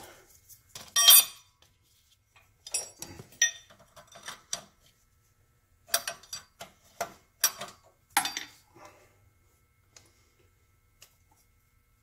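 A wrench clinking and tapping against the steel injector-line nuts and fittings of a 6.5-litre turbo diesel as the lowest lines are undone: scattered sharp metal clinks, the loudest about a second in, many more from about three to eight seconds, then only a couple of faint ticks.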